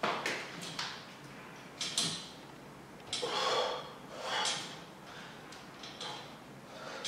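A wall-mounted pull-up bar clicks and knocks as a man grips it and does pull-ups. A few short, hard puffs of breath come in between, the loudest about three and a half seconds in.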